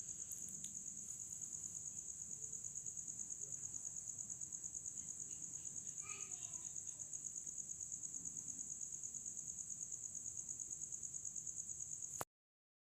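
Crickets chirping in a steady, rapid high-pitched trill that cuts off abruptly near the end.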